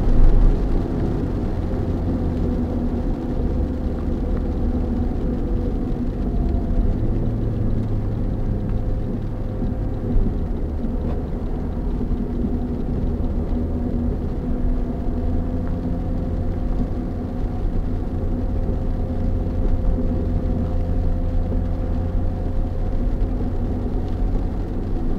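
Steady engine and tyre noise heard inside a motorhome's cab as it drives along a wet motorway exit ramp, mostly a low rumble with a faint steady drone above it.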